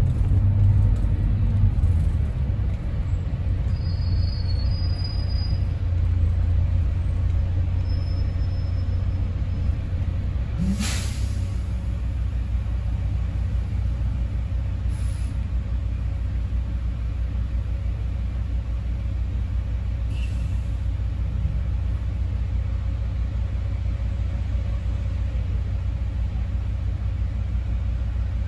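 Double-decker bus engine rumbling low, heard from inside the bus as it slows and stands idling. About eleven seconds in there is a short, sharp hiss of air from the air brakes.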